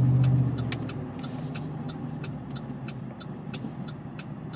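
GMC Sierra's V8 heard from inside the cab, its steady hum easing off about half a second in as the throttle is lifted, then running quietly. A regular ticking, about three a second, from the turn signal runs under it.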